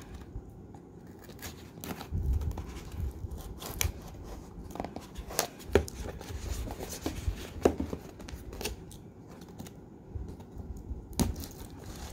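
Pocket knife blade slitting packing tape on a cardboard shipping box, with tape tearing and the box being handled and turned over. A few sharp clicks and taps are scattered through it.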